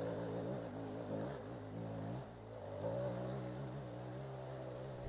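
Off-road motorcycle engines idling, a steady low running note with slight wavers in the revs.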